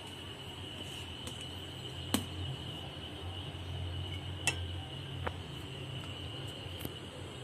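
A few sharp metallic clinks, the loudest about two seconds in, as paal kozhukattai (rice dumplings in milk) is ladled into a brass pot, over a steady thin high tone.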